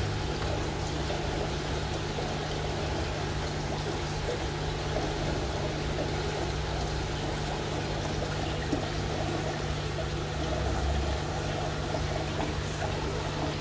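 Steady running and trickling water from an aquarium's filtration, with a low steady hum underneath.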